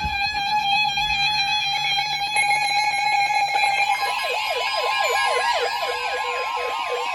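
Weather radio alert alarms sounding for a new severe thunderstorm warning. A steady tone with overtones is joined about four seconds in by a fast warbling, siren-like alarm of about five sweeps a second, with a slowly falling tone over it.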